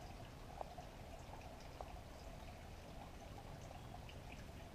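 Faint steady background hiss, with two small clicks about half a second and nearly two seconds in from hands handling the zip tie and jig skirt.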